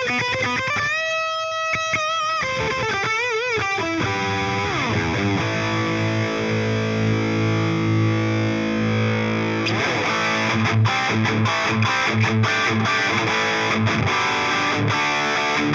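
Distorted electric guitar played through the Andy Zeugs Anvil amp-simulation plugin. A lead phrase with wide vibrato slides down into a held, ringing low chord. About ten seconds in it changes to a choppy muted riff with short stops.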